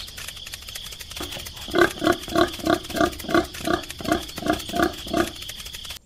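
A cartoon grunting sound effect: a run of about a dozen short, gruff grunts, about three a second, starting about a second in, over a scratchy hiss.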